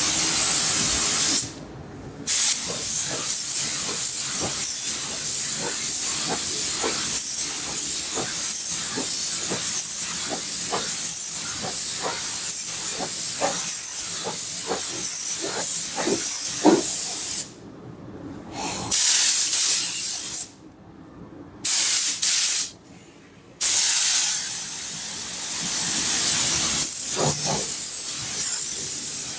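Compressed-air paint spray gun hissing steadily as paint is sprayed in passes, cutting off briefly when the trigger is released: once about two seconds in, then three short gaps past the middle.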